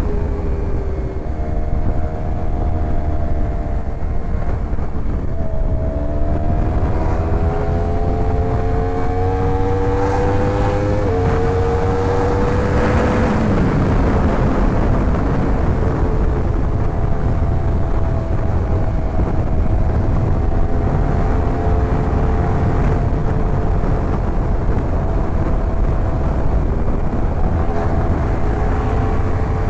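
Yamaha R1 inline-four motorcycle engine pulling up through the revs under acceleration, with a gearshift drop about eleven seconds in and a brief throttle dip soon after, then holding steady revs at cruise. Heavy wind rumble on the microphone underneath.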